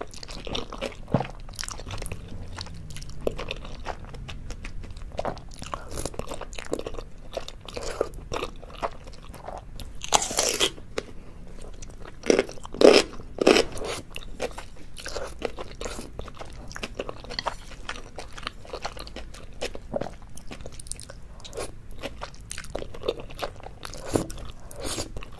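Close-miked mouth sounds of eating saucy black bean fire noodles: wet slurps of noodle strands, chewing and lip smacks in a steady stream of small clicks. The louder moments come about ten seconds in and in a few bursts around thirteen seconds in.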